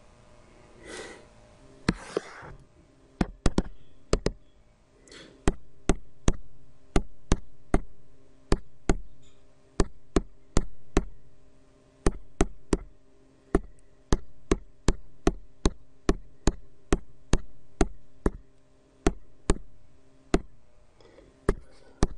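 Sharp single clicks, one per key entered, at an uneven pace of about one to two a second, as a long sum is keyed into a TI graphing calculator emulator on a computer. A couple of soft rustles come before the clicking starts, about two seconds in.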